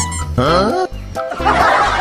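Playful cartoon-style music with sound effects: a rising pitch glide about half a second in, then short bouncy pitched notes and a dense, busy burst in the second half.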